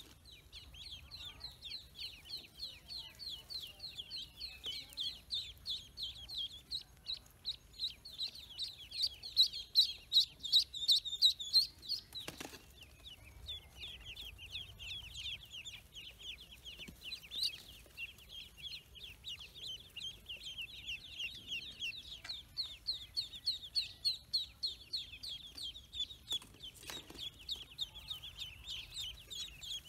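Dense, continuous peeping of a crowd of newly hatched ducklings, many high chirps overlapping, loudest a little before the middle. A single sharp knock about twelve seconds in.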